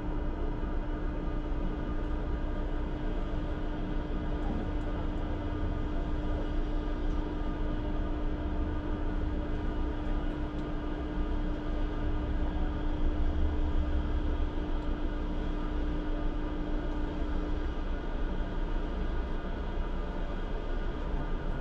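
ČKD Tatra T6A5 tram running along its track, heard from the driver's cab: a steady low rumble of wheels and running gear. A steady hum runs alongside it and stops about eighteen seconds in.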